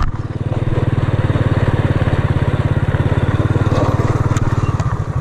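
A small engine running steadily at an even speed, with a rapid, regular low pulsing.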